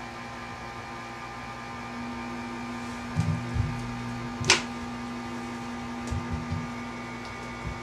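Steady electrical hum made of several steady tones, with a stronger low tone coming in about two seconds in. A few low thumps fall around three and six seconds in, and there is one sharp click about four and a half seconds in.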